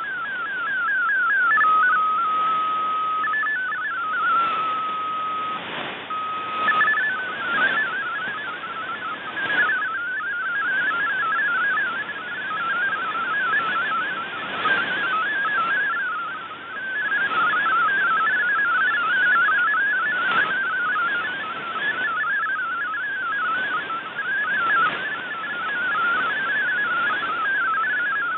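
MFSK32 digital data signal received over shortwave radio in SAM mode: a cluster of tones around 1.5 kHz, first ending an image transmission with a repeating sweep, then holding steady tones that jump in pitch for a few seconds, then warbling rapidly as text data from about seven seconds in. Crackles of atmospheric static break in now and then.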